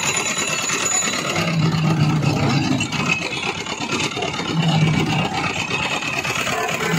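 Belt-driven sugarcane juice roller press running while cane stalks are fed through and crushed. A steady mechanical din, with a low hum that swells roughly every three seconds.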